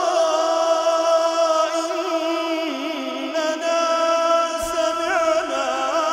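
A man reciting the Quran in a slow, melodic chant, holding long notes with ornamented turns of pitch and no pauses.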